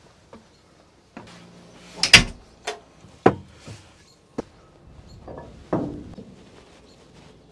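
Metal knocks and clanks from a camper truck's hatches, latches and fittings being handled: one loud bang about two seconds in, then several smaller knocks.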